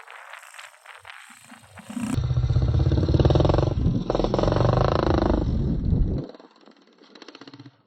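110cc pit bike engine running and revving, its pitch climbing and falling as the bike is ridden, for about four seconds from roughly two seconds in, then dropping away to quiet.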